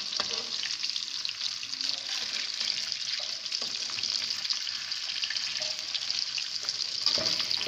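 Fish steaks shallow-frying in hot oil in an aluminium karahi: a steady sizzle full of small crackles. A slotted spatula gives occasional light scrapes and taps as the pieces are turned over.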